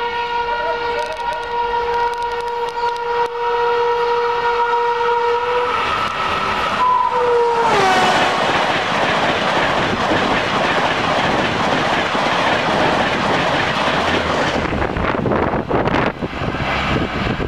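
Express passenger train approaching at speed with its horn held in one long steady two-note blast. A second blast drops in pitch as the train reaches and passes. For about six seconds after that, the rush and rattle of the coaches going by fills the sound, then eases off.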